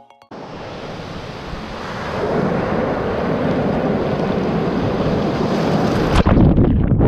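Ocean surf rushing and churning around a GoPro camera at the water's surface, with wind buffeting the microphone, building over the first two seconds. About six seconds in, the high end drops away suddenly and the sound turns to a muffled low rumble as the camera goes under the water.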